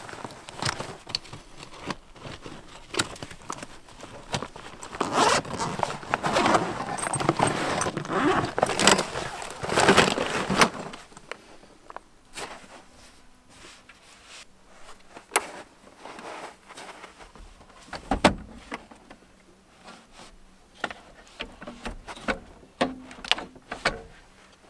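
A nylon gear bag being unzipped and rummaged: zipper pulls and fabric rustling, busiest in the first half. Then scattered clicks and knocks as a portable heater unit is lifted out and fitted into a car door window, with one heavier knock about two thirds of the way through.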